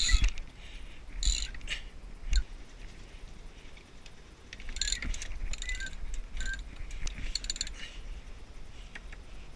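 Sailboat sheet winch ratcheting in short bursts of rapid clicks as a sheet is hauled in and trimmed, with squeaks from the lines and blocks.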